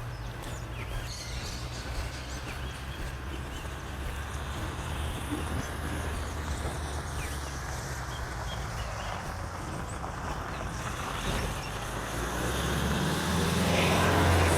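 A motor vehicle's engine running with a steady low hum, growing louder near the end as it comes closer.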